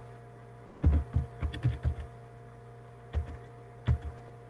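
Irregular clicks and low thumps of a computer mouse and keyboard being worked on a desk near the microphone, over a steady electrical hum.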